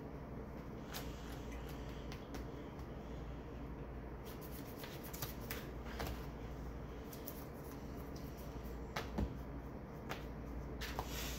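Sleeved trading cards being handled and laid down on playmats: scattered soft clicks and taps, one louder tap about nine seconds in.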